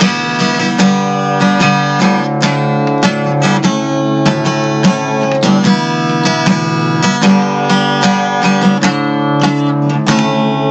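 Acoustic guitar being strummed: chords struck in a steady, even rhythm.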